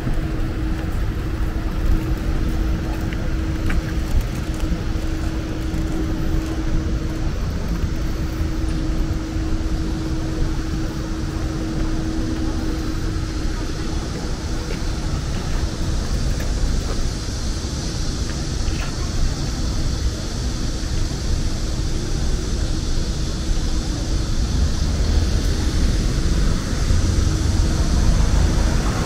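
City street ambience: road traffic running past, with a steady low hum through roughly the first half and a constant low rumble.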